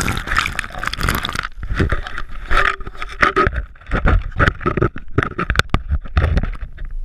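Handling noise on the camera's microphone: irregular rustling, rubbing and scraping with scattered dull knocks, as the camera is carried or shifted.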